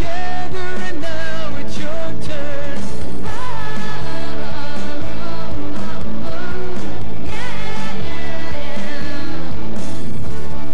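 Upbeat rock-and-roll style song with a singing voice.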